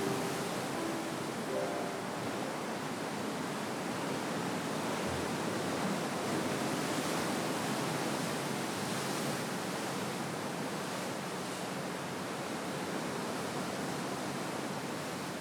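Sea surf: waves washing and breaking continuously, a steady rushing hiss that swells a little midway.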